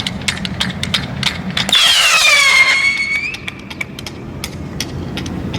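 A loud shrill whistle, about a second and a half long, that falls in pitch and then levels off, over rapid regular ticking at about three to four ticks a second.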